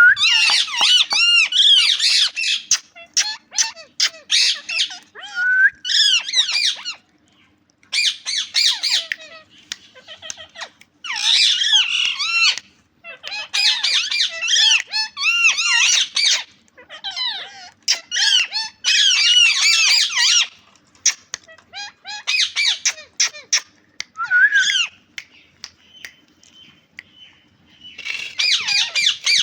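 Green parrot squawking and chattering in rapid high-pitched bouts a second or two long, with short pauses between them.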